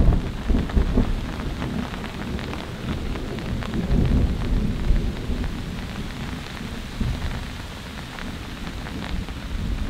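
Heavy rain falling steadily with thunder rumbling throughout, swelling loudest right at the start and again about four seconds in.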